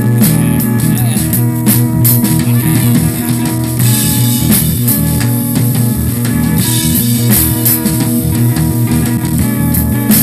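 Rock music from a home 4-track cassette recording, with a drum kit and guitar playing steadily.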